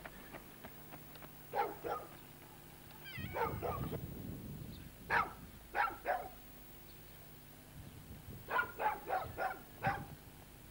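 A dog barking in short runs of sharp barks, with pauses between the runs.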